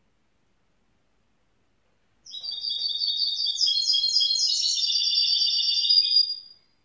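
Young goldfinch mule (goldfinch × canary hybrid) singing a rapid, chattering strophe of quick repeated high notes. It starts about two seconds in, runs for about four seconds and stops abruptly.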